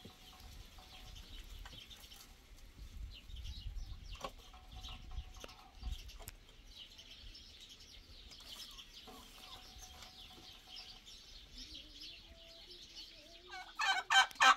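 Farmyard poultry calling: faint high chirping throughout, then near the end a loud, rapid run of calls, about three a second.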